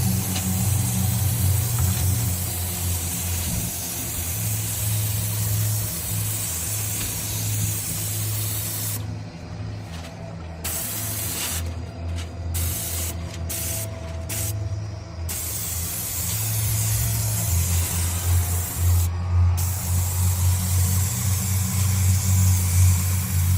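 Paint spray gun hissing as it sprays, stopping briefly about six times, in a cluster around the middle and once more near the end, as the trigger is released. A steady low motor hum runs underneath.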